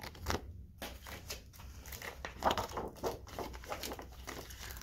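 Rustling and crinkling of laminated paper sheets being handled and turned, with irregular soft clicks and taps and a few louder strokes.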